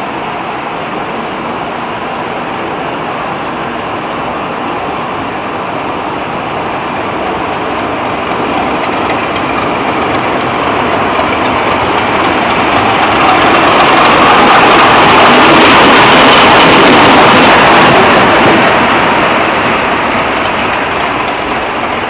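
Convoy of heritage diesel locomotives passing by, its noise swelling to a peak about two-thirds of the way through and then easing off.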